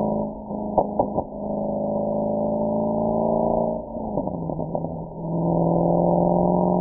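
Mercedes-AMG SL63's V8 exhaust under way, with a few sharp pops about a second in and then a steady note. About four seconds in the pitch falls sharply and the engine carries on at a steady lower note.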